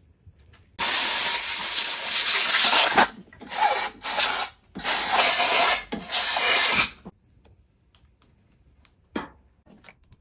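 New rubber handlebar grip being forced and twisted onto the handlebar over grip glue: loud rubbing in four long stretches with short breaks, ending about seven seconds in.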